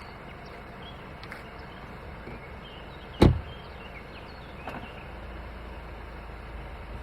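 A single loud, sharp clunk about three seconds in and a much fainter knock a second and a half later, over a steady low hum. It is a VW Tiguan's drivetrain clunking on load change, which the owner cannot place and suspects may come from the gearbox or the dual-mass flywheel.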